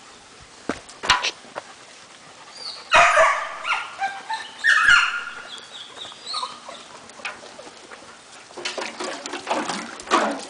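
Several dogs playing together, giving sharp barks and high yelps in short bursts, loudest from about three to five seconds in.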